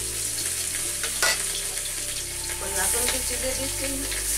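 Turmeric-coated pieces frying in hot oil in an iron wok, a steady sizzle with a sharper crackle about a second in, as pieces are added and stirred.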